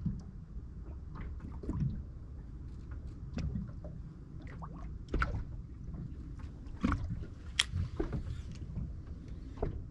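Water lapping and gurgling against a small boat, a low steady rumble with scattered light clicks and knocks at irregular moments.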